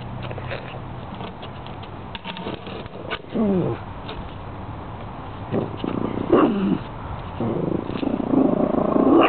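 Pug puppy vocalizing at a frog in short bouts of pitched whining growls, the longest near the end.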